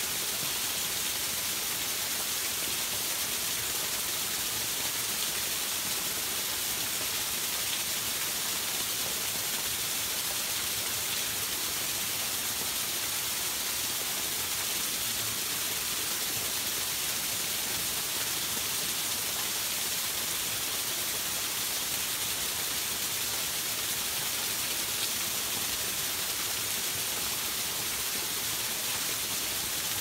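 Forest stream spilling over small waterfalls: a steady, bright rush of running water.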